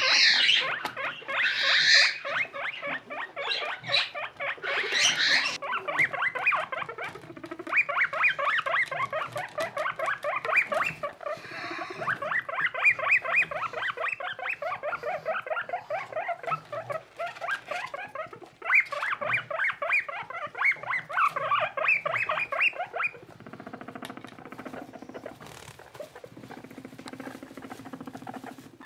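Skinny guinea pigs calling in a fast, steady stream of short squeaks, about eight a second, with a few higher rising squeals in the first few seconds. About three-quarters of the way through, the calls give way to a quieter, lower hum.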